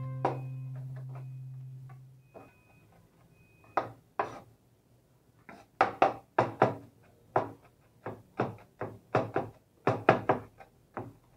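A held guitar note rings out and fades over the first two seconds. Then come sharp, separate knocks on a hard surface: two near the middle, then an irregular run of about two a second.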